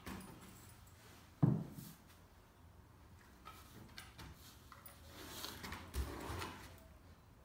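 Knocks and scuffling on bare wooden floorboards as two German shepherds play, the loudest a sharp knock about a second and a half in and another thump near six seconds.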